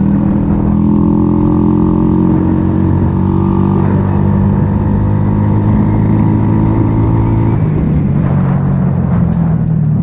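A 70cc motorcycle engine running through an aftermarket exhaust at a steady cruising pace. Its note changes about three-quarters of the way through.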